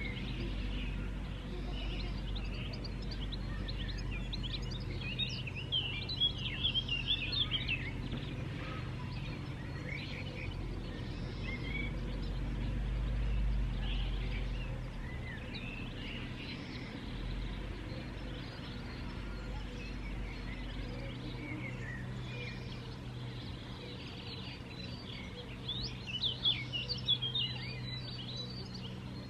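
Birds chirping and singing in short bursts, busiest about five to eight seconds in and again near the end, over a steady low hum and a low rumble.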